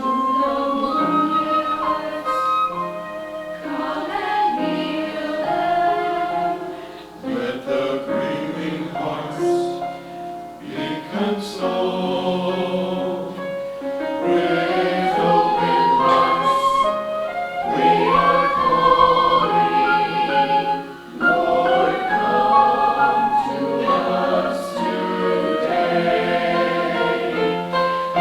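Church choir singing, with brief dips between phrases.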